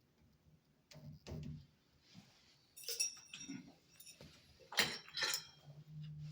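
Small metal parts clinking and clicking as a little pin is worked into place on a shower valve cartridge: a handful of sharp metallic clicks with brief ringing, the loudest a little under five seconds in.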